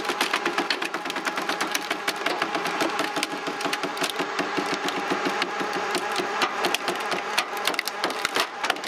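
Engine driving a homemade horizontal hydraulic log splitter, running steadily with a fast knock, while the beech log cracks and splinters as it is forced apart lengthwise.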